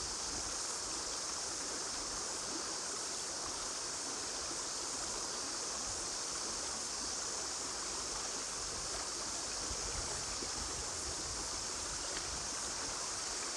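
Shallow river running over a stony bed: a steady rushing of water.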